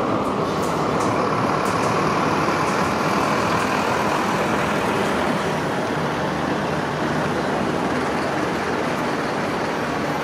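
Steady traffic noise at a busy tram and bus junction, as an SL79 tram rolls slowly through a curve on its rails and buses run around it. A whine sinks slightly in pitch over the first few seconds.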